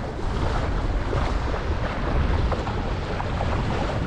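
Wind buffeting the microphone aboard a sailboat under way, over the rush of water along the hull.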